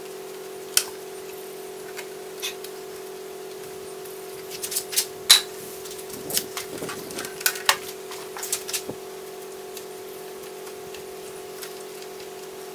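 Scattered light clicks and knocks of a wooden frame holding a leaded stained-glass panel being handled, tilted and set down on a workbench, busiest in the middle, over a steady background hum.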